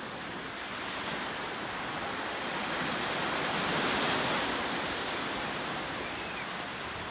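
Ocean surf: a wave breaking and washing in, a rushing hiss that swells to its loudest about four seconds in and then eases off.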